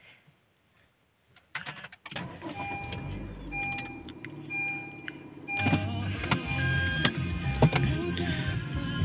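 Honda car cabin with the ignition on: a dashboard warning chime beeping about once a second, then the engine starts a little past halfway and runs, with another short electronic tone soon after.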